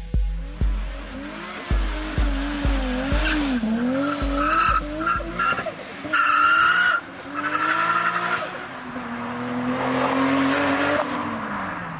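Toyota Supra's single-turbo 2JZ-GTE straight-six revving up and down as the rear tyres spin and squeal in smoke, with music with a heavy beat under it until about halfway. Near the end the engine holds a steadier pitch, then falls away and fades.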